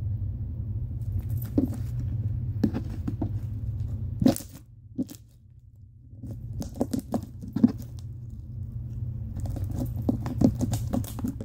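Wet slime being squished and pulled by hand: clusters of sticky clicks and pops, with a quiet pause in the middle, over a steady low hum.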